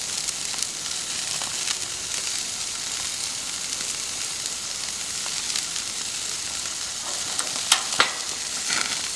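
T-bone steaks sizzling on a hot gas grill grate in a wire grilling basket: a steady hiss with small crackles, and two sharper pops close together near the end.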